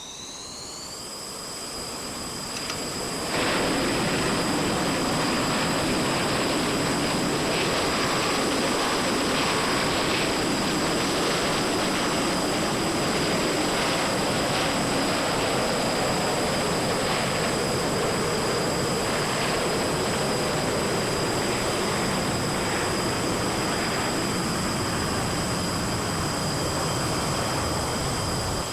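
An engine starting: a high whine rises and settles into a steady pitch, then about three and a half seconds in it catches and settles into a loud, steady running noise. It fires without trouble, the sign that it is not flooded.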